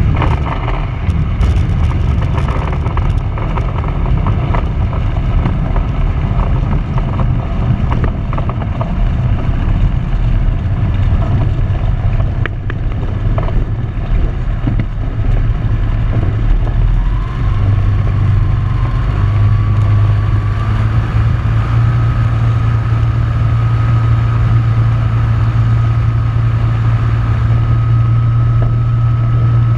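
Tecnam P92 light aircraft's piston engine and propeller, heard inside the cockpit while the plane rolls over grass, with clicks and rattles in the first few seconds. About 17 s in the engine speeds up in two steps as power is added, then holds a steady, higher drone.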